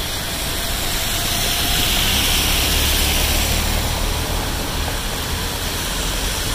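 Road traffic in heavy rain, heard from a moving vehicle: a steady hiss of rain and tyres on wet tarmac over a low engine rumble, swelling slightly a couple of seconds in.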